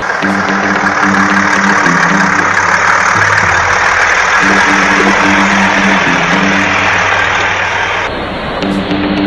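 A heavy vehicle's engine running loudly and steadily, cutting off about 8 seconds in, with background music going on underneath.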